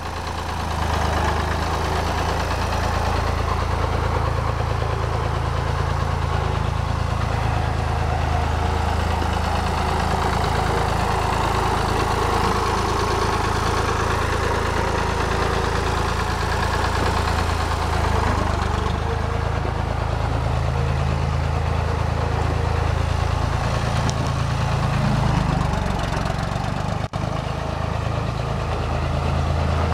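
Case 1194 diesel tractor engine running steadily with a deep drone and diesel clatter, then pulling away and driving off; its sound grows duller from about two-thirds of the way in as it moves away.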